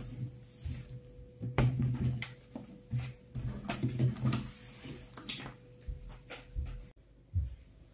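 Handling noises at a wooden desk: a laptop lid being shut, then a series of knocks, scrapes and rustles as things are moved and the person gets up, over a faint steady hum. The sound changes abruptly about seven seconds in.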